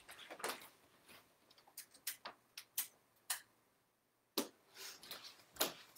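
Faint, irregular clicks and light knocks, about ten of them spread unevenly, from someone moving about and handling small objects.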